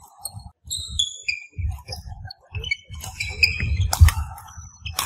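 Court shoes squeaking on a wooden badminton floor amid footfalls during a doubles rally, with sharp racket strikes on the shuttlecock about four and five seconds in.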